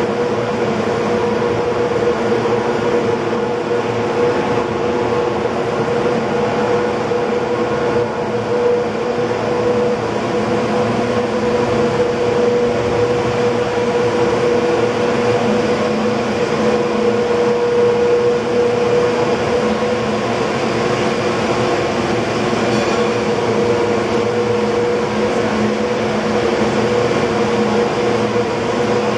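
Cable car power house winding machinery running: the big drive wheels and haul cables turning over their sheaves make a steady mechanical drone with a constant hum.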